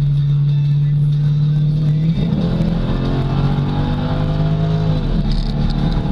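Modified 2007 C6 Corvette's LS2 V8, heard from inside the cabin. It holds a steady drone, then rises in pitch under acceleration from about two seconds in, and drops sharply near five seconds.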